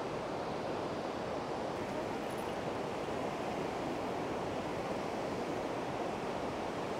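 Steady rush of a fast mountain river running over rocks.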